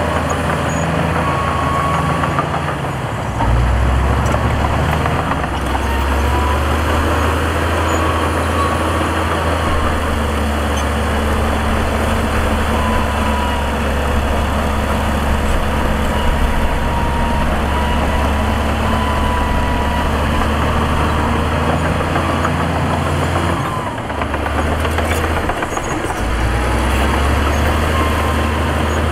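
Heavy diesel engines of dump trucks and a bulldozer running steadily. The engine note changes a few seconds in, drops briefly near the end, then picks up again.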